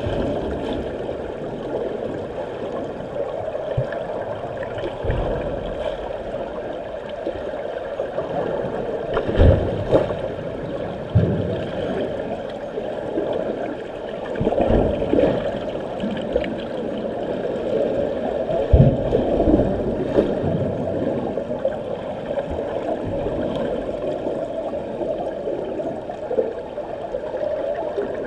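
Pool water heard from underwater: a steady muffled rush from swimmers' strokes and kicks passing overhead, with a few low thumps near the middle.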